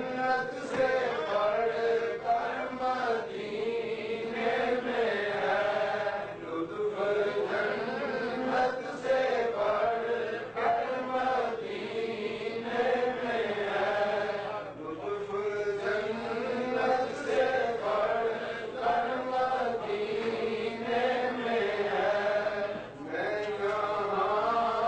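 Men's voices chanting a devotional recitation in a continuous melodic line that rises and falls without pause.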